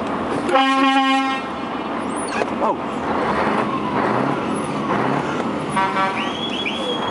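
Truck horn sounding one blast of just under a second, then a shorter toot about six seconds in, over the steady running of a truck's diesel engine heard from the cab. A few short rising whistle-like tones come right after the second toot.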